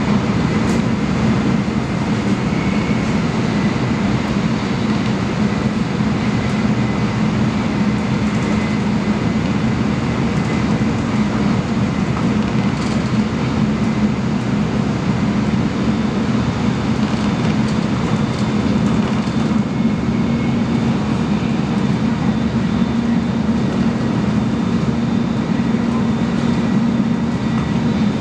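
Shinkansen bullet train running at high speed, heard from inside the passenger car: a steady, even rumble with its weight low in pitch.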